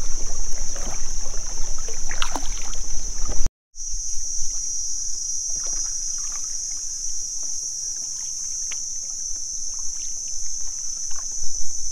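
A steady, high-pitched insect drone, with kayak paddle strokes dipping and splashing in the water underneath. The sound drops out briefly about three and a half seconds in.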